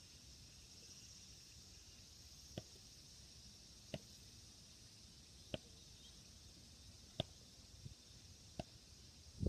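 Near silence: a faint steady hiss, broken by five short sharp clicks spaced about a second and a half apart.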